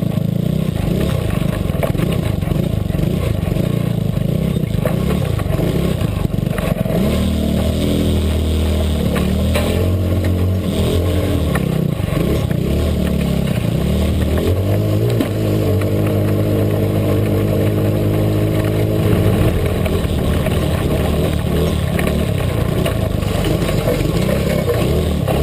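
Small off-road vehicle's engine running as it pushes through brush, its note changing with the throttle and holding steady pitches for a few seconds at a time in the middle stretch. Vegetation scrapes and clatters against the machine.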